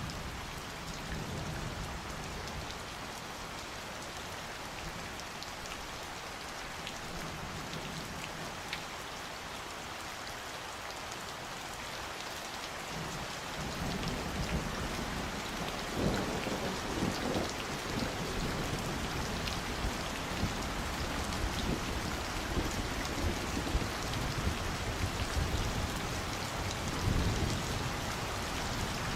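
Steady summer rain falling and pattering on surfaces. About halfway through, low rumbles of thunder roll in and the sound grows a little louder.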